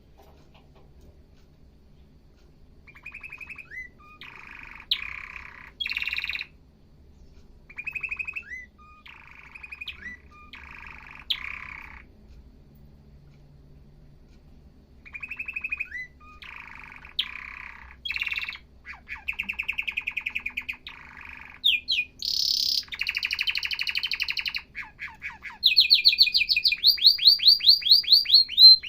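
Male domestic canary singing: about three seconds of quiet, then a series of rapid trilled phrases separated by short pauses, growing louder and higher-pitched near the end with a fast run of repeated rising notes.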